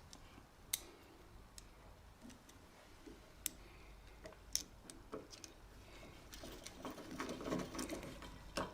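Scattered faint metal clicks and taps of screws and a hand tool being worked into a band sealer while a wheel is refitted. The clicks are isolated at first and become a busier run of small rattles and clinks near the end.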